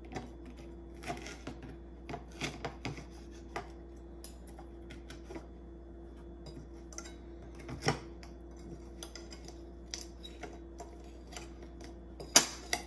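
Metal knife and fork scraping and clinking against a plate while cutting a Pop-Tart: irregular short scrapes and taps, with a sharp loud clink near the end. A steady low hum runs underneath.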